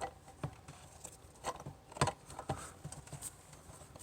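Irregular light clicks and taps of small parts being handled, about a dozen, the loudest about two seconds in.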